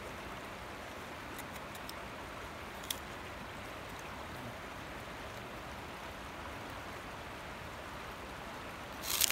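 Steady rushing of water along the shore, with a few faint clicks and a brief, louder noise just before the end.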